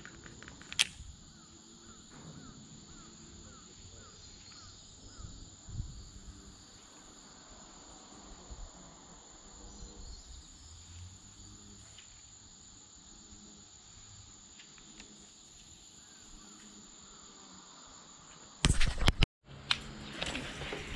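Insects trilling steadily, a high continuous buzz that pulses every few seconds. A sharp click comes about a second in, and loud knocks and rustling come near the end.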